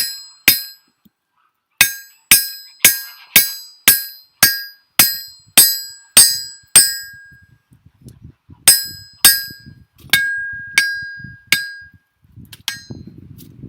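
Blacksmith's hammer striking hot steel on an anvil, about two to three blows a second, each with a short bright ring. There is a pause about seven seconds in, then more blows that grow fainter near the end. This is the first heat, shaping the hardy tool's shank to fit the hardy hole.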